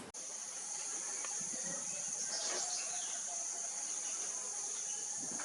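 A steady high-pitched insect drone, with a few faint bird chirps over it.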